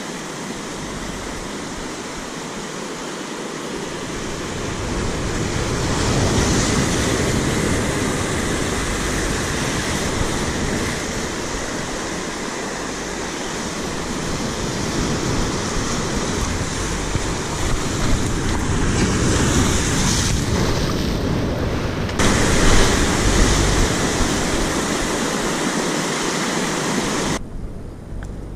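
Sea surf breaking and washing over shore rocks, mixed with wind buffeting the microphone; it swells louder several times and drops off abruptly near the end.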